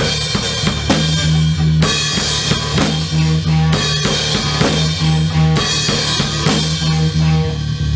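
A rock band playing: a drum kit keeps a steady beat with kick and snare under a bass guitar line of low notes.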